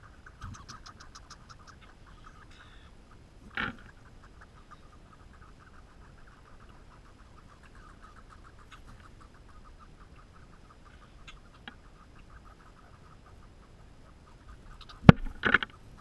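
Squirrels scuffling on sunflower seed hulls right beside the camera, heard through a closed waterproof camera housing. A short scratchy burst comes about four seconds in, and near the end there is a sharp knock and a quick scramble, the loudest sounds. A faint steady fast ticking runs underneath throughout.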